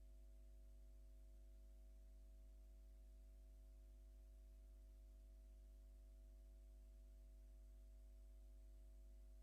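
Near silence: room tone with a steady low hum and a few faint, steady tones.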